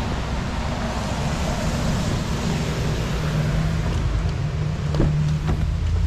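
Steady outdoor noise: a low, buffeting rumble typical of wind on the microphone over an even hiss, with a low hum in the second half and a faint click about five seconds in.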